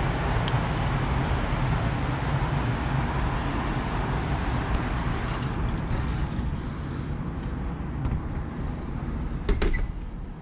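Steady hum of city road traffic from the road below, heard from a high-rise balcony. A few sharp knocks come near the end.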